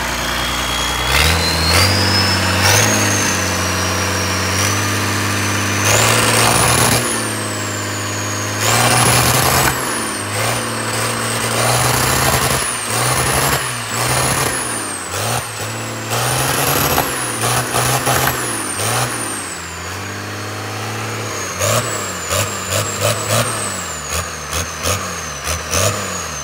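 Six-cylinder Cummins diesel engine running and being revved up and down over and over, with a high whine rising and falling with each rev and, near the end, a run of sharp knocks several times a second. It is not running smoothly, which the mechanic puts down to the injection pump having been fitted wrongly and needing to be re-timed.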